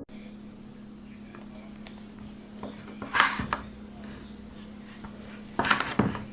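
Room tone with a faint steady hum, broken by brief rubbing and scraping sounds of things being handled, once about three seconds in and again twice near the end.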